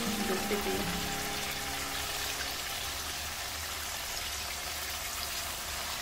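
Marinated chicken pieces sizzling with a steady hiss in hot oil in a wok as they are turned over with a metal slotted spatula.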